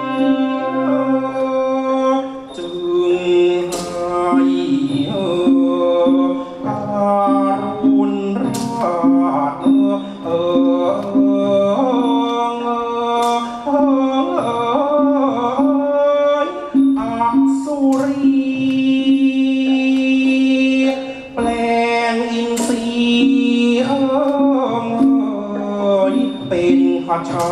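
Orchestral music accompanying a Khon masked dance-drama: held, shifting melodic lines with a sharp percussion strike every four to five seconds.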